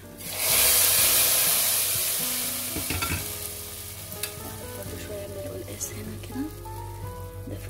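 Hot oil with fried garlic and coriander (taqliya) poured into a pot of hot taro and chard soup: a loud hiss starts about half a second in and slowly dies down. A ladle then stirs the pot, with a few light knocks.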